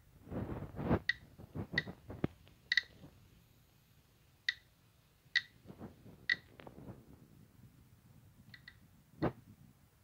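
Radiation counter giving short, high-pitched beeping clicks at random intervals, about ten in all, a few in quick pairs, as it registers radiation from a radioactive thorium mineral specimen (thorianite). Low rustling handling noise from the specimen being moved lies under the clicks, loudest in the first second.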